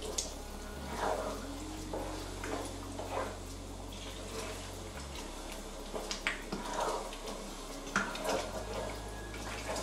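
A pot of thick tomato stew with meat being stirred with a plastic spatula: wet stirring sounds and scattered scrapes and knocks of the spatula against the pot, over a steady low hum.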